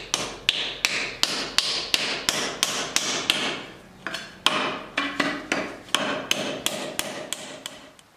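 Hammer driving a wooden wedge into the top of an axe handle seated in the forged axe head's eye, wedging the head on: steady knocks about three a second, each with a short ring. The blows pause briefly about four seconds in, resume, and stop just before the end.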